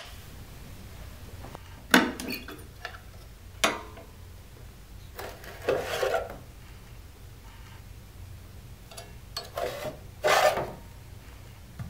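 Metal battery clamp and batteries of an HV-100 robot being handled as the depleted batteries are taken out: scattered knocks and scrapes. The loudest clunks come about two seconds in and again around ten seconds.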